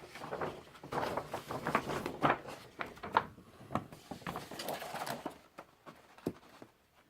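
Paper posters and inserts from an LP package being handled, unfolded and shuffled: busy rustling and crinkling with many small crackles, thinning out to a few isolated ticks near the end.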